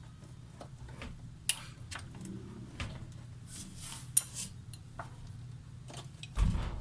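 Scattered small clicks and taps of washing-machine shift actuator parts being handled and fitted together by hand, over a steady low hum, with one heavier thump near the end.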